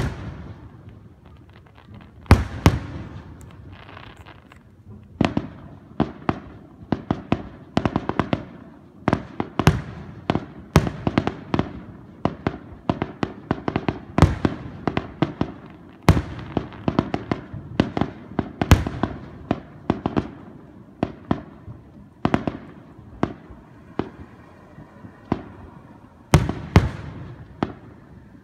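Aerial fireworks shells bursting at a distance of a few blocks: a rapid, irregular run of sharp bangs, each trailing a rumbling echo, thinning out briefly near the end.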